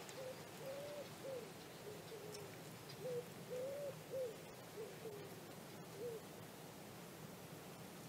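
Faint cooing of a wild pigeon: short soft hooting notes in repeated phrases, a couple a second, stopping about six seconds in.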